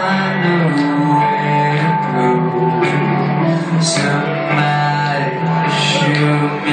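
Live rock band playing a slow song on electric guitars, with a male lead vocal sung into a handheld microphone.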